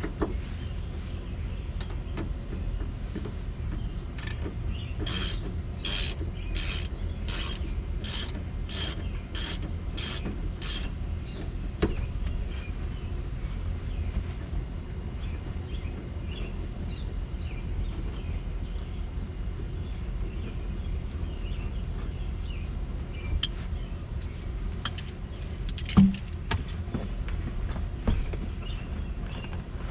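Ratchet wrench being worked on a fastener: a run of about a dozen short ratcheting strokes, about two a second, then scattered small clicks and one sharp metal knock near the end. A low steady rumble underneath.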